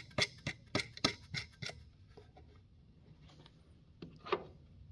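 Metal nut being spun by hand down a threaded steel stud, a quick run of light metallic clicks for about the first second and a half, then quiet apart from one faint clink near the end.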